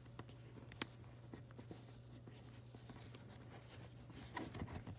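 Thick, many-layered origami paper being folded and pressed flat by hand against a tabletop: faint scratchy rustling and small ticks, with one sharp click about a second in and louder rustling near the end, over a steady low hum.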